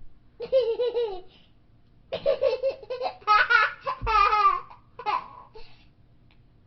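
A young child laughing in several bursts, the longest near the middle with quick, wavering giggles.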